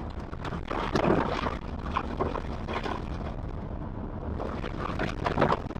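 Truck driving through mud on a dirt road: a steady low rumble of engine and tyres, broken by irregular splashes and slaps of mud and water thrown up against the truck, loudest about a second in and again near the end.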